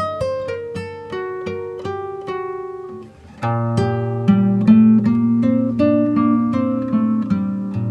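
Music: acoustic guitar picking single notes in a quick run. About three and a half seconds in, a fuller backing with held bass notes joins it.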